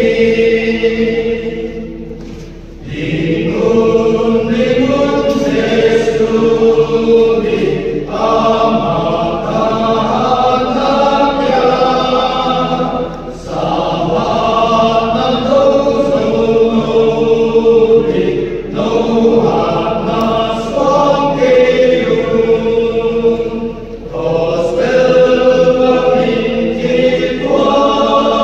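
Men's church choir singing a hymn in several parts, phrase by phrase, with short breaks between lines.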